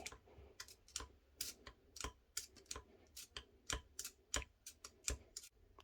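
Light metal clicks and taps, irregular and a few a second, as a rod is pushed down a hole in an AP360 punch tool to drive a pin all the way down.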